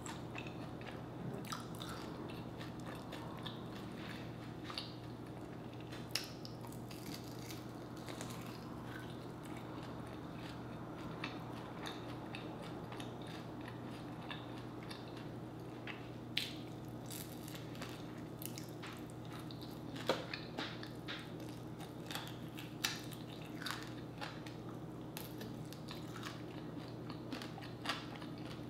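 Close-up eating sounds of a person biting and chewing sauced chicken wings, with irregular crunches and small clicks, over a steady low hum.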